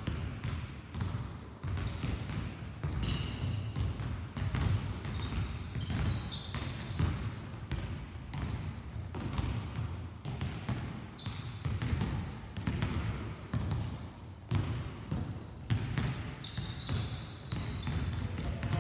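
Several basketballs bouncing on a hard sports-hall floor, the thuds irregular and overlapping, ringing in the large hall. Short high squeaks come and go over the bouncing.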